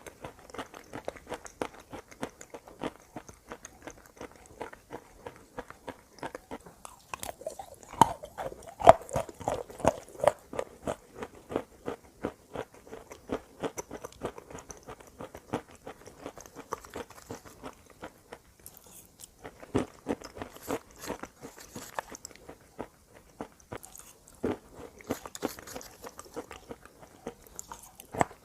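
A person biting and chewing crunchy chalk-like pieces: a steady run of dry crunches, with louder bites about eight to ten seconds in and again around twenty seconds.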